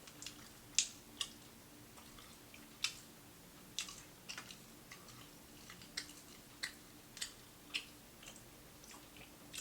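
Close-up chewing of crispy fried food: sharp, irregular crunches and wet mouth clicks, about one to two a second, over a faint steady low hum.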